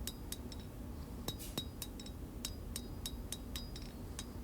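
Hand hammer striking hot steel on an anvil, about three ringing blows a second with a short pause about a second in, drawing out a knife blade to length.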